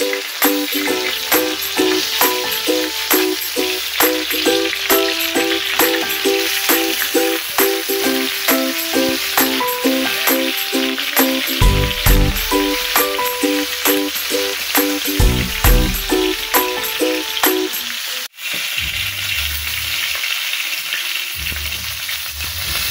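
Oil sizzling and spitting under a whole chicken searing on a granite-coated griddle pan, with two low thumps near the middle as the chicken is handled. Background music with a steady plucked beat plays over it until about three-quarters through, then drops out after a sudden cut, leaving the sizzle alone.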